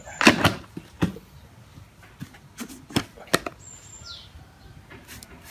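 A metal spoon and a plastic jar and lid being handled while MSG is spooned out: a handful of sharp clicks and knocks, with a short high falling chirp near the end.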